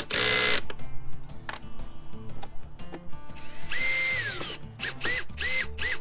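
Cordless driver running screws into a plastic fridge panel. There is a short burst at the start, then a longer run about three and a half seconds in, its motor whine rising and then holding. Near the end comes a string of quick trigger blips, each a brief rising whine.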